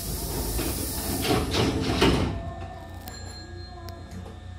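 Hankyu train's double sliding doors closing, with a rush of noise that ends in a sharp knock as the door leaves meet about two seconds in, followed by a low hum and a few light clicks.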